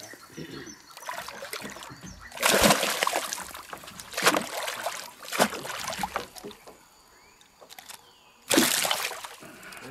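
Hooked spot-tail bass thrashing at the water's surface beside a boat, splashing in several sudden bursts, with a quiet spell before a last big splash near the end as it is gripped and lifted.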